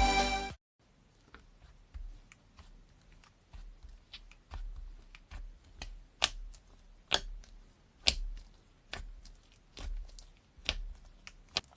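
Slime being squished and worked, giving irregular sticky clicks and pops, a few sharper ones in the middle and near the end.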